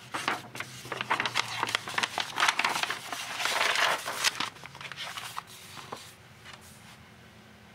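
Sketchbook paper rustling and crinkling as a page is turned over by hand, loudest in the middle, then fading out after about six seconds.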